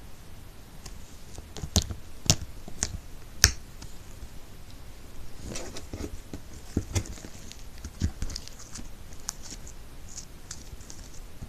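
Slime being squeezed and poked by hand, making sharp sticky pops and clicks: four louder ones in the first few seconds, then a run of softer crackling clicks.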